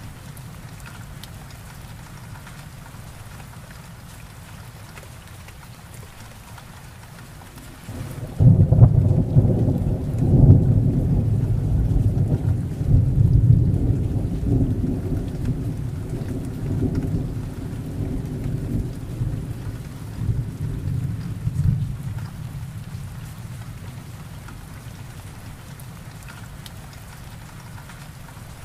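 Steady heavy rain falling, with a roll of thunder that breaks in suddenly about a third of the way in, rumbles loudly for several seconds and dies away about two-thirds of the way through, leaving the rain alone.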